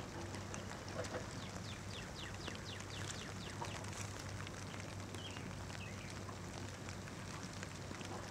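Steady rain hiss over floodwater, with a bird singing a quick run of short falling whistled notes between about one and a half and three and a half seconds in. A faint low steady hum underneath.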